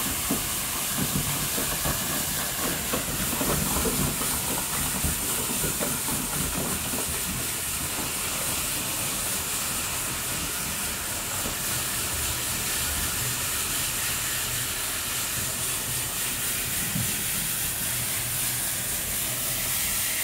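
Crushed ice from an ice-crushing machine pouring through a chute into a fishing boat's ice hold: a steady rushing hiss.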